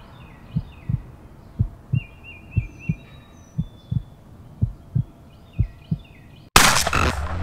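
Heartbeat sound effect: a double low thump about once a second, with birds chirping in the background. About six and a half seconds in, a sudden loud burst cuts in and music follows.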